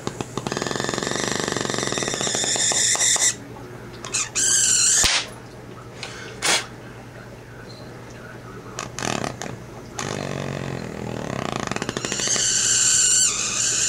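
Bernzomatic propane torch with HHO gas fed into its head, hissing with a whistling edge in two long spells, with a shorter rising-and-falling whistle ending in a sharp click about five seconds in.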